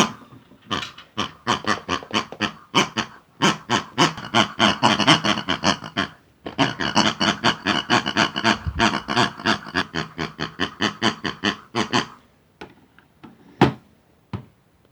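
Pig grunting and oinking: a fast run of short grunts for about eleven seconds, then a few scattered grunts near the end.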